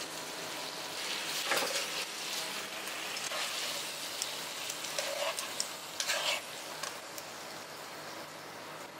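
Spaghetti sizzling in a hot nonstick frying pan, with metal tongs scraping against the pan a few times as the noodles are lifted out.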